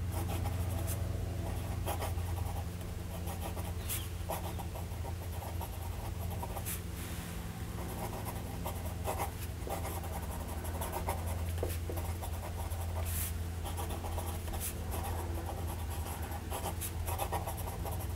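Steel medium nib of a Faber-Castell Grip fountain pen scratching over paper in short strokes as it writes a line of words, over a steady low hum.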